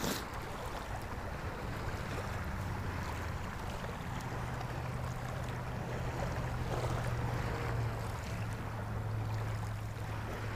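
Steady wind and water noise over open water, with a low, steady engine hum that grows stronger about four seconds in. A single sharp click at the very start.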